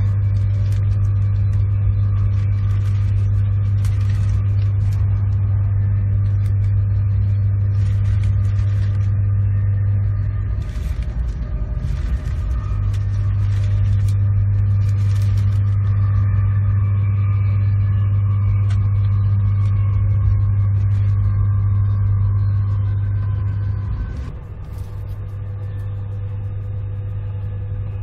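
Cabin noise inside a Class 390 Pendolino electric train running along the line: a loud steady low drone with occasional clicks. The drone breaks off briefly about eleven seconds in, and the whole sound drops a little in level near the end.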